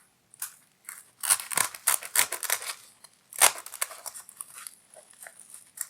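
Scissors snipping the product labels off a travel pouch: a series of irregular snips and rustles.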